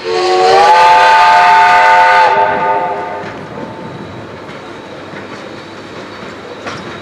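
Whistle of the Er-class steam locomotive Er787-46, blown once before departure: a loud chord of several tones that slides up slightly as it opens, holds for about two seconds, then dies away. A steady background rumble continues afterwards.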